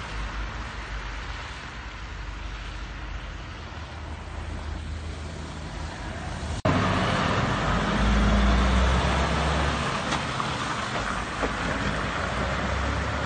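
Road traffic on a snow-covered highway: cars passing with a steady noisy wash of tyre and road noise. About six and a half seconds in an abrupt cut brings a louder, low rumble of a snowplow truck's diesel engine running as it drives along.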